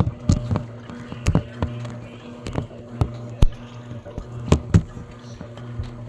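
Electrolux Essential Care 11 kg top-loading washing machine agitating a soapy wash load: a steady motor hum, with water and clothes sloshing and slapping in the tub in irregular sharp splashes several times.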